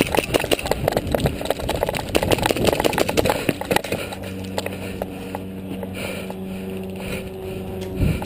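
Quick footfalls on dirt with gear rattling, a player on the move, dense and irregular for about four seconds. After that the steps fade under a steady mechanical hum, and a single low thump comes near the end.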